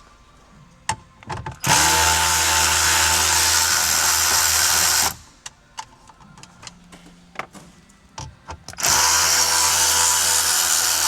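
Power driver with a 7mm socket spinning out two dash fasteners: two steady motor runs of about three seconds each, with small handling clicks in between.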